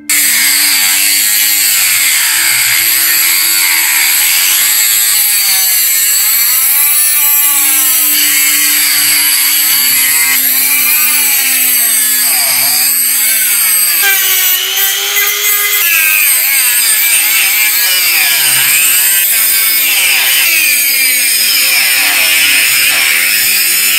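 Power tool working a steel screw clamped in a vise, a continuous grinding hiss over a steady motor tone that shifts in pitch a few times.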